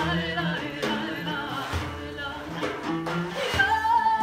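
Live music: a woman singing a wavering melody over a daf frame drum struck in a slow beat, with plucked strings beneath. About three and a half seconds in her voice rises to a long held high note.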